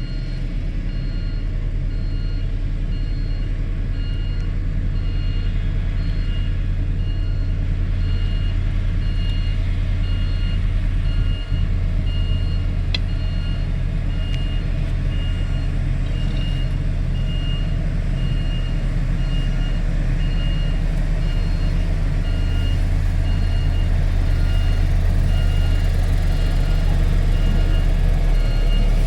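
Heavy construction vehicle engine running steadily at a low drone, with its reversing alarm beeping repeatedly at an even pace.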